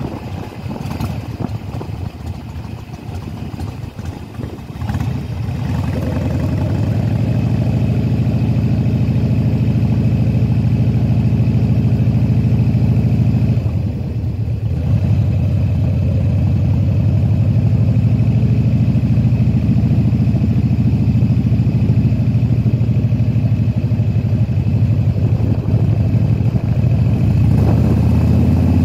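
Harley-Davidson Softail Deuce's Twin Cam 88 V-twin engine running while the bike is ridden. The engine note is weak and unsteady for the first few seconds, then steadies and grows louder. About halfway through it drops briefly, then picks up again.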